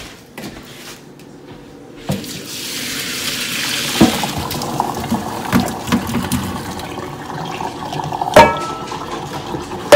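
Boiled potatoes and their cooking water poured from a pot into a plastic colander in a stainless steel sink: a rushing splash of water that starts about two seconds in and swells, then carries on more weakly. Several knocks of the pot and potatoes come through it, the loudest near the end.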